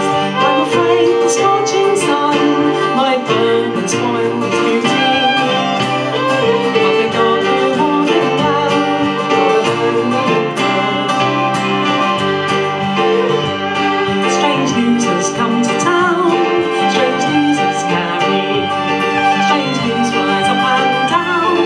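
Live folk music: a fiddle bowed over a Yamaha keyboard and a strummed acoustic guitar, playing a traditional folk song.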